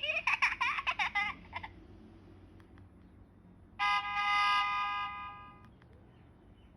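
Nokia 1200 mobile phone's small loudspeaker playing tones. A warbling, chirpy sequence lasts about a second and a half, then about two seconds later a single held buzzy tone lasts about a second and a half.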